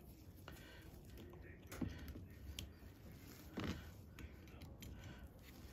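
Pliers pulling and twisting a bonsai tie-down wire tight against a plastic colander pot: faint handling scrapes with a few sharp clicks.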